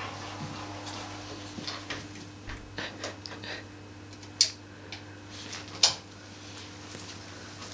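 Quiet room with a faint steady hum and scattered small ticks and rustles as two Siberian huskies, an adult and a puppy, shift about on a blanket. Two short, sharp, high-pitched sounds stand out, about four and a half and six seconds in.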